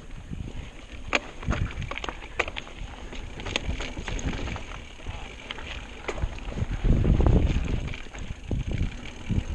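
Mountain bike rolling down rocky dirt singletrack: tyres crunching over rocks and the bike rattling, with scattered sharp clicks and knocks. Wind rumbles on the microphone throughout, loudest about seven seconds in.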